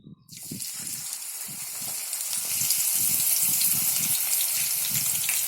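Peeled field beans dropped into hot oil and deep-frying: a hiss with fine crackling starts suddenly and builds over the first few seconds, then holds steady.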